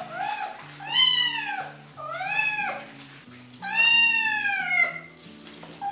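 Young ginger kitten meowing loudly four times while being bathed, each cry rising and falling, the last one long and drawn out: protest at the bath. Soft background music plays underneath.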